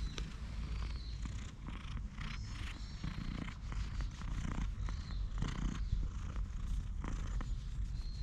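Domestic cat purring steadily, a close, continuous low rumble, as its chin and cheeks are scratched by hand; the cat is content and enjoying the petting.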